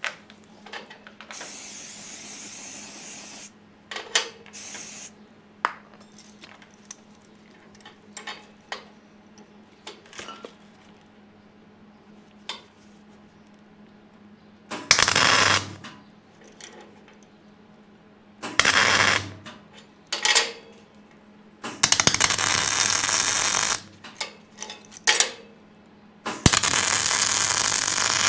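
Anti-spatter spray hissing from an aerosol can in two bursts, then clicks and knocks of a steel clamp being set. From about halfway through, a 170-amp gas-shielded MIG welder's arc crackles in six bursts of welding on the steel table plates, the longest about two seconds, over a low steady hum.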